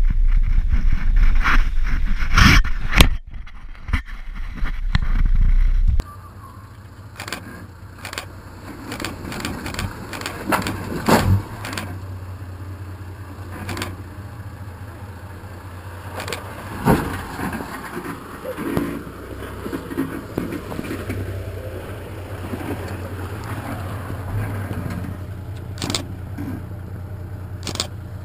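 Toyota 80 Series LandCruiser engine labouring up a steep, muddy, rutted hill climb, with scattered knocks and clunks as the tyres and underbody meet rock and clay. For the first few seconds it is a heavy low rumble heard from on the vehicle itself; after that it is a steadier engine drone heard from beside the track.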